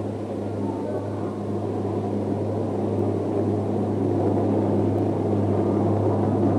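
Steady low electrical hum under a rumbling drone that slowly grows louder, on an old sermon recording.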